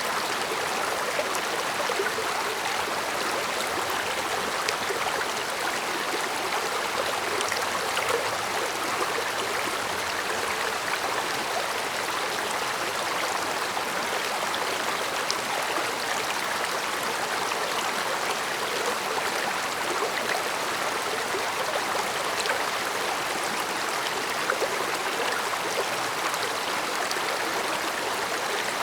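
A small stream running over stones, a steady babble of flowing water with scattered tiny splashes and drips.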